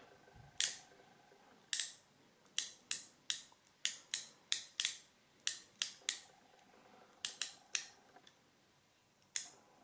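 Gedore ratchet clicking over its pawl tooth by tooth as it is turned slowly by hand: about nineteen single sharp clicks at uneven spacing, counted over a quarter turn to gauge its fine tooth count of about 76 teeth.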